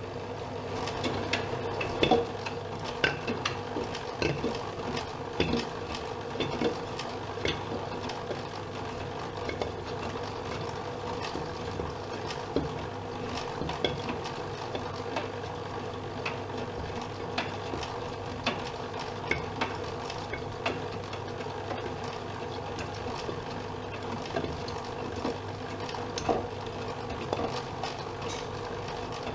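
Privileg Dynamic 7420 washing machine running: a steady motor hum with irregular clicks and knocks throughout, busiest in the first several seconds.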